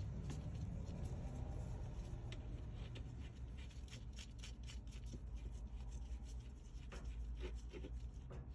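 Hand tools working a bolt on a washer's drive parts: an irregular string of small metallic clicks, like a ratchet, with rubbing and handling noise over a steady low hum.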